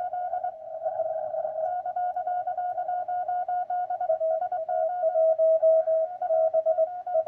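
Morse code (CW) tones from an amateur radio receiver: several stations in a DXpedition pileup keying on and off at nearly the same pitch, with one slightly lower, louder signal coming in about four seconds in for a couple of seconds. Among them is a station sending with its letters run together, too little spacing between characters to read its callsign easily.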